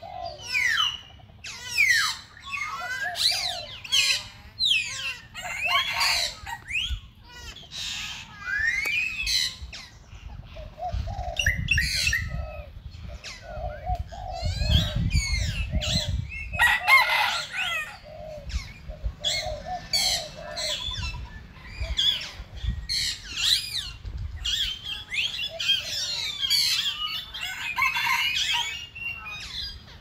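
A busy chorus of birds calling: many quick chirps and whistled notes that glide up and down, some short lower repeated notes among them, with a low rumble underneath in the middle.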